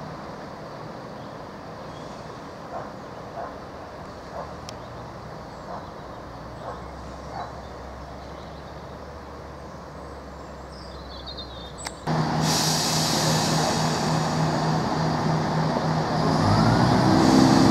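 Class 171 Turbostar diesel multiple unit standing with its underfloor diesel engines idling, faint at first. About twelve seconds in it becomes much louder, a steady engine hum with hiss, and near the end the engines rev up with a rising growl.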